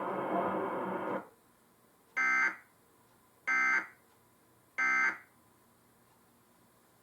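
Emergency Alert System end-of-message data signal: three short, identical bursts of shrill, buzzing digital tones, about a second and a quarter apart, marking the end of the national test alert. Before them, a steady noisy hum cuts off about a second in.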